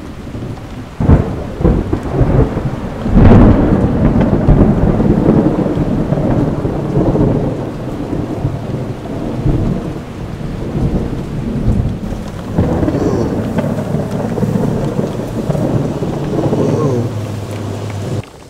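Thunderstorm: two sharp thunder cracks about one and three seconds in, rolling into a long rumble over steady rain. A second long roll of thunder starts about twelve seconds in and cuts off suddenly near the end.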